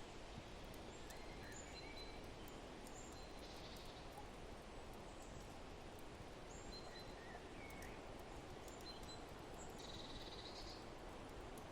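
Faint forest ambience: a steady low rush of wind with scattered short bird chirps, and two brief buzzy trills, one about three seconds in and one near the end.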